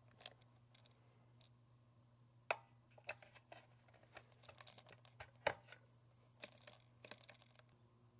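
Plastic clicks and clatter of AA rechargeable batteries being taken out of a plastic battery charger's slots and handled. The sharpest clicks come about two and a half and five and a half seconds in, with a run of smaller clicks between them and near the end.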